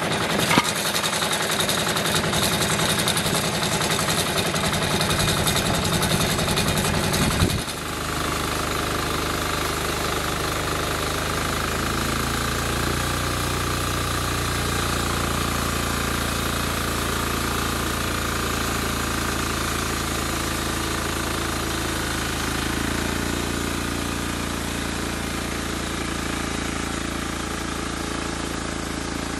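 Engine of a homemade bandsaw sawmill running with a rapid rattle. About eight seconds in the sound changes abruptly and settles into a steady run as the band blade saws through a larch log.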